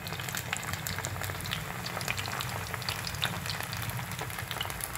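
Marinated fish steaks shallow-frying in hot oil in a non-stick pan: a steady sizzle with many small pops and crackles.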